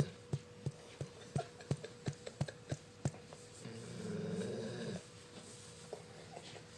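A Labrador retriever giving one low, rough snore while being petted, about four seconds in, after a run of light sharp taps.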